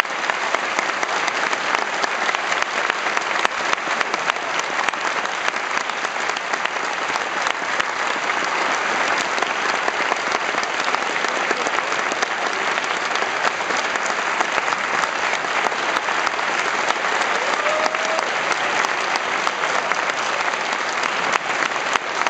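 A large theatre audience applauding in a long, steady, unbroken round of clapping.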